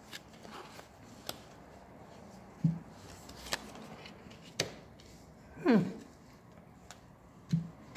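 Tarot cards being drawn and laid down on a table: a few light clicks and soft thuds. About six seconds in comes the loudest sound, a short one that falls steeply in pitch.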